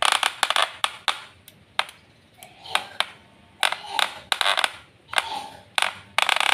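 Wahl Super Taper hair clipper running with a harsh clattering, rattling noise, the 'kletek kletek' of a faulty clipper. The clatter comes in uneven bursts, several times, with short gaps between.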